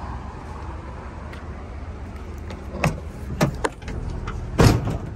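A pickup truck's engine idling with a steady low hum, while a few sharp clicks and knocks come about three seconds in and a heavy thump near the end.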